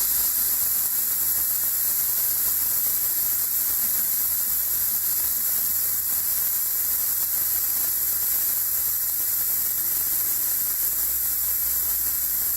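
Steady hiss with a low hum beneath it, unchanging, with no distinct knocks or events.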